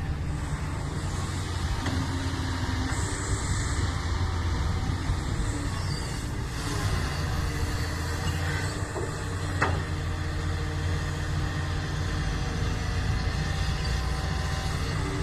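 Doosan excavator's diesel engine running steadily under work, with a short high hiss about three seconds in and a single sharp click near the end.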